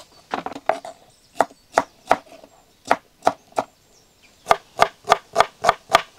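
Kitchen knife chopping tomatoes and onions on a wooden cutting board: sharp knocks of the blade striking the board, about sixteen strokes in short runs. The strokes come quicker, about four a second, in the last second and a half.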